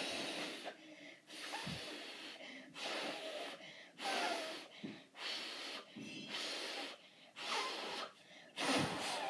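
Breathy blowing through a strip of paper held taut against the lips: about eight puffs roughly a second apart, a few of them giving a brief buzzing tone.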